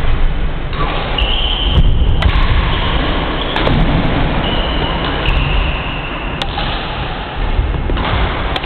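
Badminton rally: sharp racket strikes on the shuttlecock every second or two, with brief high squeaks from court shoes on the wooden floor, over a steady low rumble.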